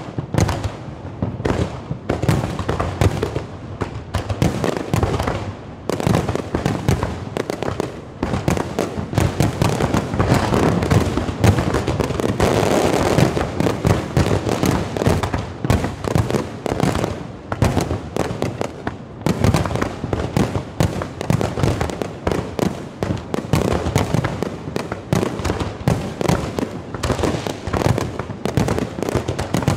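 Aerial fireworks display: a rapid, continuous barrage of shell bursts and bangs, thickening into a dense, almost unbroken stretch of bursts in the middle.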